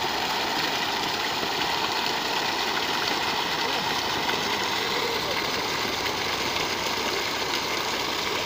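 Water from a borewell submersible pump gushing steadily out of the discharge pipe and splashing onto the ground in a continuous rush.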